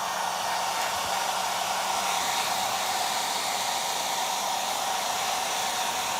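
Handheld hair dryer blowing steadily at constant speed, an even rush of air over a steady motor whine.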